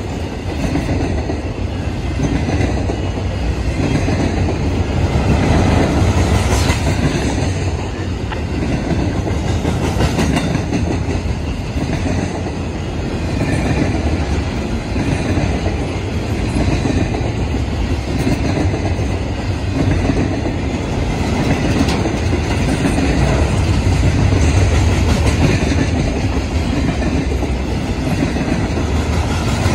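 Freight train of double-stack intermodal well cars rolling past close by: a steady loud rumble with the wheels clacking over the rails.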